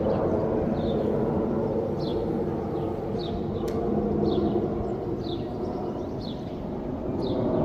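Outdoor ambience: a steady low rumble, with a small bird giving short falling chirps about once a second and a single sharp click midway.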